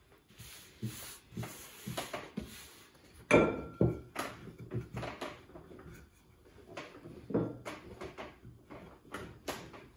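Wooden rolling pin working a thin sheet of fresh egg pasta on a wooden board: irregular knocks and rubbing as the pin is pushed back and forth, with the sharpest knocks about three seconds in and again just past seven seconds.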